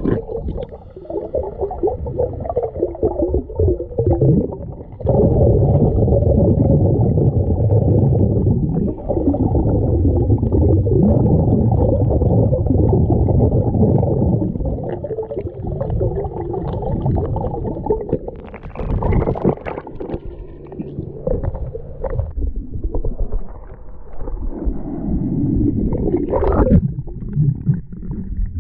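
Ocean surf heard underwater: a muffled rumble of churning water that swells and eases, with a few sharper, splashier surges in the second half.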